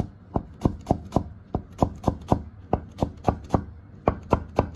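Chinese cleaver slicing a cucumber on a round wooden chopping board: a steady run of sharp knocks, about three to four a second, with a couple of short breaks as the hand shifts.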